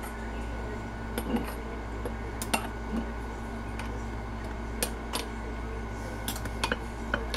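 Scattered light clinks and scrapes of kitchen utensils against a plastic canning funnel, a glass mason jar and a steel pot while preserves and syrup are spooned into the jar, over a steady background hum.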